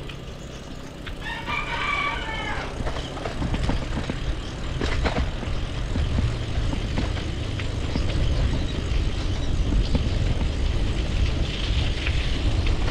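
A rooster crows once, about a second and a half in. Under it runs a steady low rumble of wind on the microphone and riding noise from a bicycle moving along a concrete lane.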